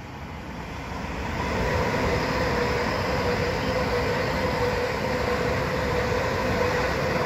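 Class 390 Pendolino electric train passing at speed. It grows louder over the first couple of seconds as it approaches, then holds a steady rush of wheels on rail with a faint hum.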